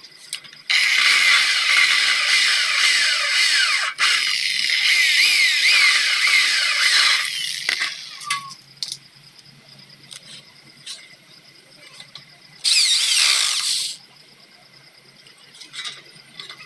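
Electric drill running into the corner joint of an aluminium door frame: a run of about three seconds, a momentary stop, then another of about three and a half seconds with the motor pitch sliding up and down, and one shorter run near the end.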